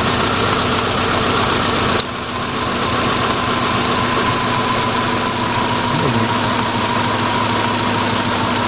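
Subaru 2.2-litre flat-four engine idling with a misfire while plug wires are pulled to find the dead cylinder, with one sharp click about two seconds in.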